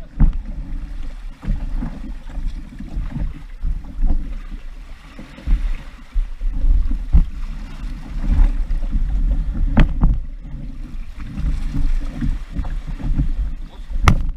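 Wind buffeting a camera microphone, a low rumble that rises and falls, with a few sharp knocks, the last near the end as someone reaches down right beside the camera.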